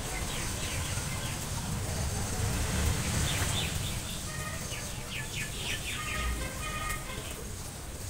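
Small birds chirping in quick, repeated short calls, busiest from the middle onward, over a steady low rumble.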